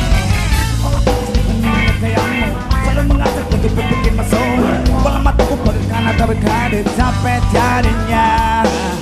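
Rock band playing live at full volume: drum kit, electric guitars and bass, with a melodic line bending over the top.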